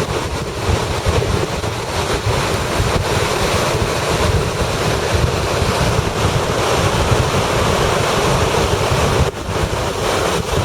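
Storm waves on Lake Superior crashing and surging on the beach, under strong gusting wind buffeting the microphone with a heavy low rumble. The noise is loud and dense, dipping briefly about nine seconds in.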